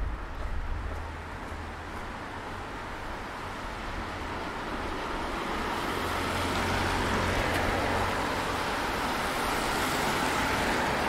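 Road traffic with tyres hissing on a wet street, a steady noise that grows louder about halfway through and then holds.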